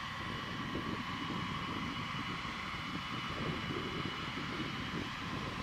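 B-52H jet engines running steadily at a distance: a low rumble under a thin, steady high whine.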